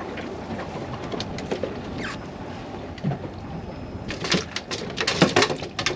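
Steady rush of wind and water around a small fishing boat. From about four seconds in comes a quick, irregular run of sharp knocks and clatters.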